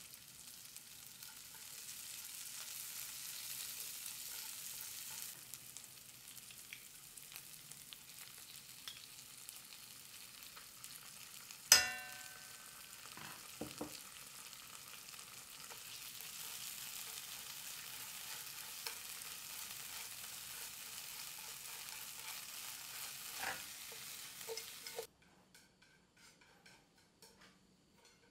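Diced vegetables sizzling in oil in a nonstick frying pan, a steady hiss. About twelve seconds in comes one sharp metallic clink that rings briefly, followed by a few softer knocks. Near the end the sizzle cuts off abruptly, leaving only faint clinks.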